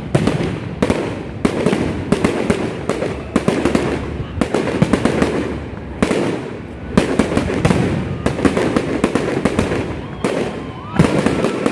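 Aerial firework shells bursting in quick succession, a dense run of sharp bangs and crackles several times a second, with a short lull about halfway through.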